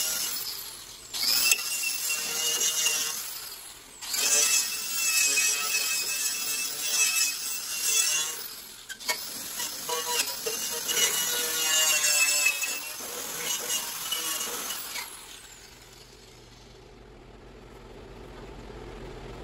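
Electric angle grinder working on a metal mower deck, with a high motor whine and loud grinding noise. It runs in about four passes of a few seconds each with brief dips between them, then goes quiet in the last few seconds.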